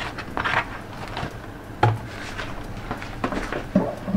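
Rustling of a plastic meat tray and wrap as raw ribeye steaks are pulled out and set on a wooden cutting board, with scattered light knocks and a duller thump about two seconds in.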